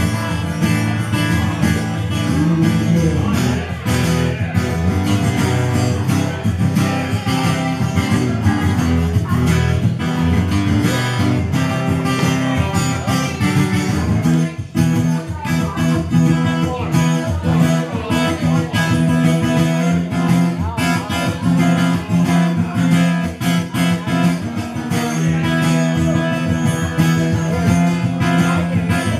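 Steel-string acoustic guitar strummed steadily in an instrumental passage of a song, with a brief break in the strumming about halfway through.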